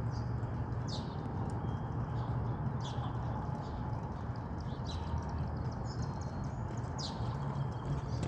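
Running footsteps of sneakers on asphalt, plodding as the runner goes away and comes back toward the microphone. A bird repeats a short downward-sliding call about every two seconds, over a steady low rumble.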